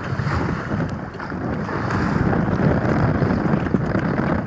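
Wind buffeting the microphone over choppy sea water washing against a small boat's hull.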